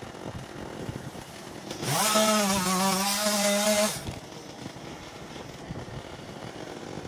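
Chainsaw revved up to high speed for about two seconds, about two seconds in. The pitch rises as it winds up, then holds with a slight waver before dropping away.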